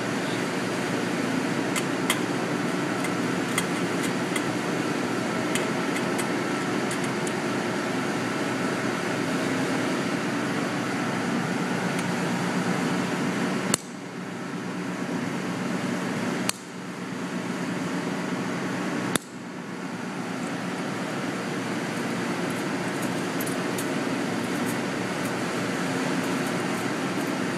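Steady fan-like machine noise with a faint hum, broken by scattered light clicks and, in the middle, three sharp clicks a couple of seconds apart.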